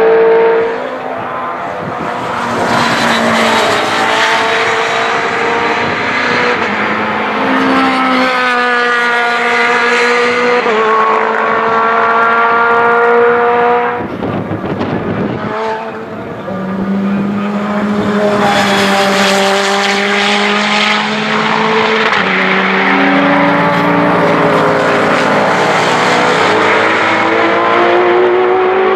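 Several sports-prototype race cars running at full throttle, one after another, their engines revving high. The pitch climbs and then steps back down at each gear change, often with more than one engine heard at once.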